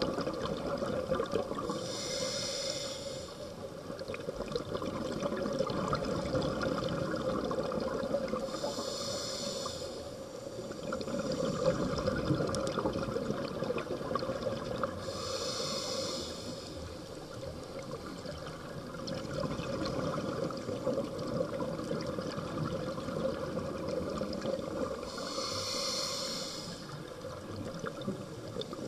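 Scuba diver breathing through a regulator, heard underwater: four hissing breaths of about two seconds each, six to ten seconds apart, with the rush and bubbling of exhaled air in the longer stretches between them.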